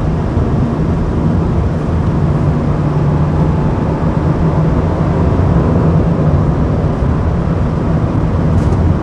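Volkswagen Jetta sedan heard from inside the cabin while cruising at highway speed: a steady low engine drone with constant tyre and road noise.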